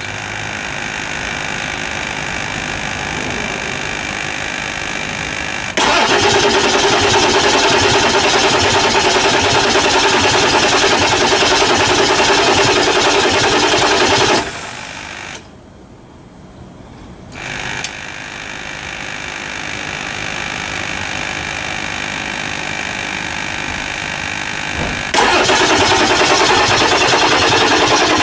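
Starter cranking the 1999 Ford F350's 7.3L Power Stroke V8 diesel in long runs without it catching, with a short rest about halfway through. It is a hard start after an injector cup replacement.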